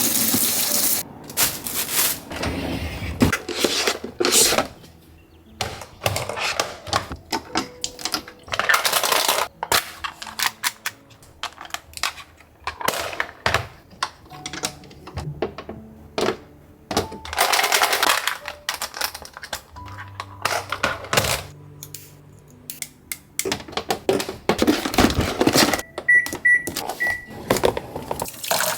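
Household handling sounds of objects being picked up, set down and opened: frequent clicks, knocks and bursts of rustling, over soft background music. Near the end come three short high beeps from an appliance.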